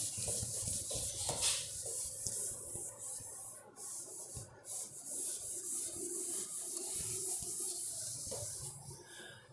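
Cloth wiping a whiteboard, a steady rubbing hiss as marker writing is erased.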